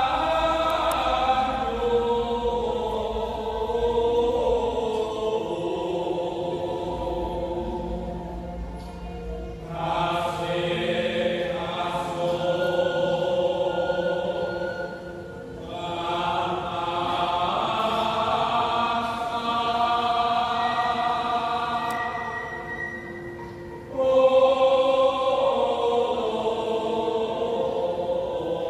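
Choir chanting the slow sung melody of a Javanese bedhaya court dance in long held phrases, to gamelan. A new phrase begins about every six to eight seconds, and the one near the end comes in loudest.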